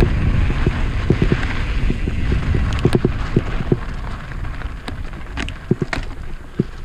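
Mountain bike rolling downhill on a dry dirt singletrack: tyres crackling over dirt, twigs and pine needles, with irregular clicks and rattles from the bike over a low rumble, easing off a little toward the end.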